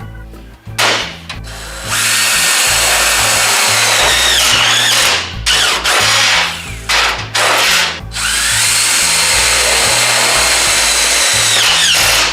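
Power drill running in two long runs of a few seconds each, with short trigger bursts between them; the motor whine drops in pitch as each run ends. Background music plays underneath.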